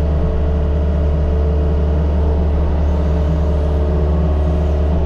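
Mini excavator's diesel engine running steadily under work, a constant low drone with no change in pitch or level.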